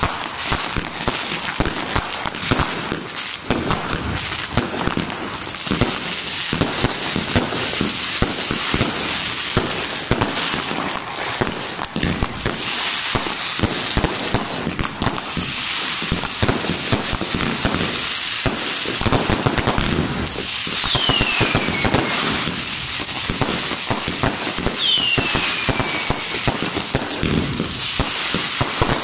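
Dense fireworks: a continuous crackle of bangs and pops from firecrackers and bursting aerial shells. Two short whistles fall in pitch in the second half.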